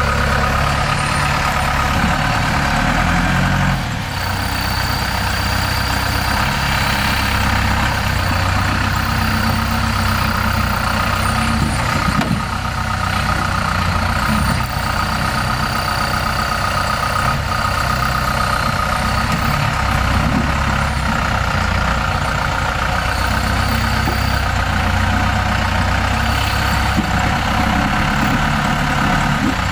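Off-road vehicle engine running steadily at low revs while rock crawling. A brief knock comes about twelve seconds in and another near the end.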